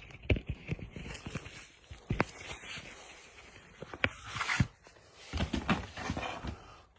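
A sealed Blu-ray box set being opened by hand with fingernails: scattered clicks and taps with short stretches of rustling packaging.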